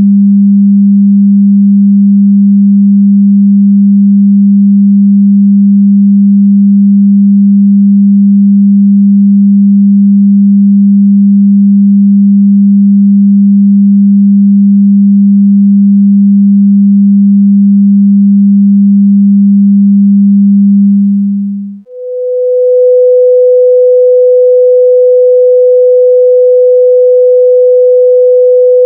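Steady 200 Hz sine-wave test tone that stops abruptly about 22 seconds in, followed at once by a steady, higher 500 Hz sine-wave test tone.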